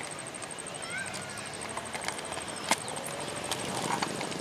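Outdoor ambience: a steady high-pitched pulsing buzz, a few short chirps about a second in, and scattered sharp clicks, the loudest near the three-second mark, over a low hum.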